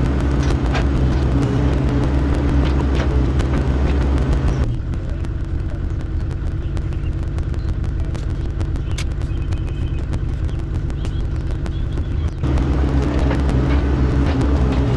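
Mini excavator engine running steadily with scattered sharp clanks of metal and rock. About five seconds in the engine sound drops abruptly to a quieter, thinner note, and it comes back to full strength about twelve seconds in.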